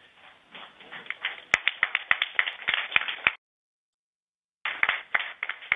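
Scattered hand clapping from a room of flight controllers, applause for the spacecraft separation just called, heard through a narrow, phone-like audio feed. The claps build up about half a second in. The feed drops out completely for about a second midway, then the clapping comes back.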